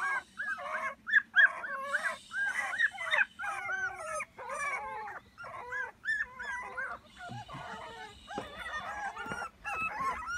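A litter of young puppies whining and yelping over one another, many short high cries in quick succession. They are in distress at being bathed.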